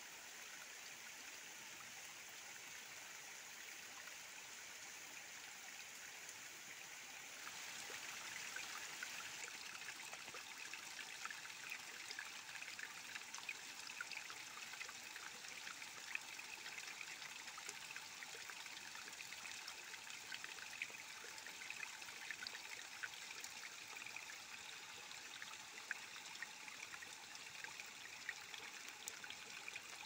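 Thin trickle of water running down rock and splashing, a steady faint patter of many small drips and splashes. About seven seconds in, it turns louder and brighter.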